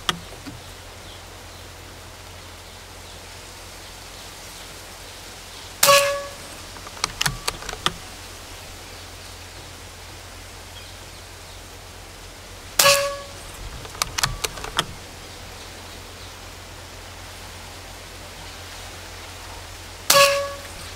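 Three shots from a Precihole PX120 Minotaur PCP bullpup air rifle, about seven seconds apart, each a sharp crack with a short ringing tone. After each shot comes a quick run of small clicks as the action is cycled for the next pellet.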